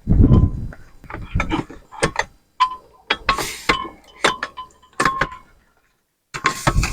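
A gust of wind buffets the microphone briefly, then comes a run of sharp metallic clicks and clinks with short rings, with two brief rasping scrapes among them, as a rooftop car tent's frame and fittings are folded and fastened closed.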